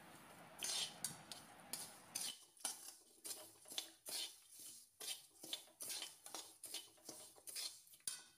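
A perforated metal spatula scraping and stirring broken wheat around a metal kadai, a run of short scrapes about two to three a second, as the grains are roasted in ghee until they brown.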